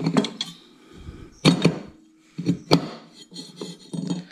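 Riding-mower deck pulley being set onto a new spindle's shaft over its washer: a run of irregular metal knocks and clinks from the parts being handled, with a few sharper knocks.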